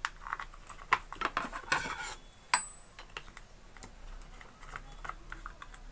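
Small clicks, taps and scraping rattles of a plastic terminal-box cover and its screws being handled and fitted onto a water pump motor. One sharp click with a short high ring, about two and a half seconds in, is the loudest sound.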